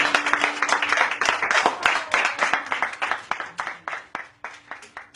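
Audience applauding, dense at first, then thinning out and fading to a few scattered claps near the end.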